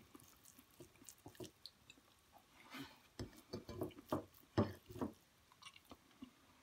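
Eating rice and curry by hand: faint, irregular wet squishes and smacks of fingers working the rice and of chewing, busiest in the middle.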